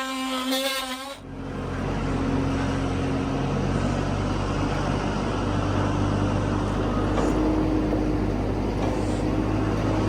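A steady pitched whine that cuts off about a second in, then a motor vehicle running steadily with a low engine hum and road noise.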